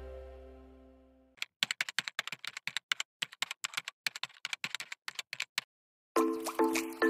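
Background music fades out, then a rapid, irregular run of keyboard-typing clicks lasts about four seconds. Near the end, chiming mallet-percussion music begins.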